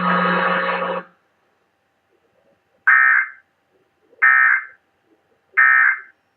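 A loud buzz cuts off about a second in. Then come three short bursts of warbling data tones about 1.3 seconds apart: the EAS/SAME end-of-message signal that closes a test tornado warning.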